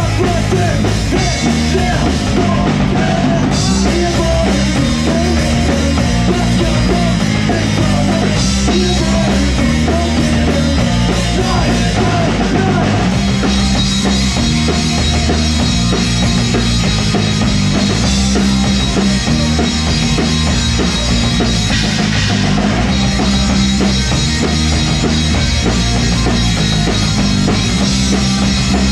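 Live rock band playing loudly in a club: drum kit driving the beat under a heavy bass line and guitars, in a punk-rock style.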